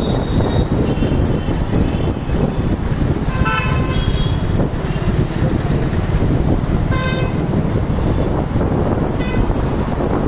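Vehicle horns honking in street traffic: one about three and a half seconds in, a shorter one about seven seconds in, and a faint one near the end. Under them runs a steady low rumble of wind on the microphone and traffic.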